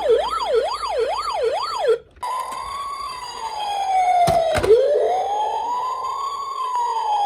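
Electronic siren from a toy emergency vehicle's sound module: a fast wavering yelp that cuts off about two seconds in, then after a brief gap a slow wail rising and falling. Two sharp knocks come about halfway through.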